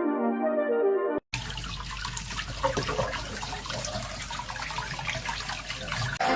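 Water running and splashing steadily, like a tap running into a sink, after a brief pitched tune in the first second that cuts off.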